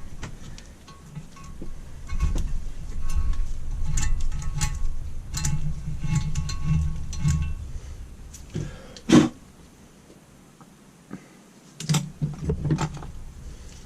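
Thread tap being turned by hand with a tap wrench in a drilled-out bolt hole in an engine's cast cover, re-cutting the threads: rubbing and handling noise with small metallic clicks and ticks. There is a single sharp knock about nine seconds in, and a few more clicks near the end.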